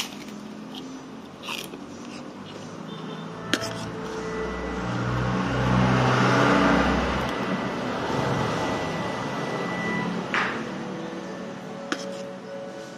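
Eating sounds: a crunchy bite of krupuk cracker at the start, then a few sharp clicks of a spoon against a plate. Midway a motor vehicle passes, its noise and low engine hum swelling for about four seconds and fading.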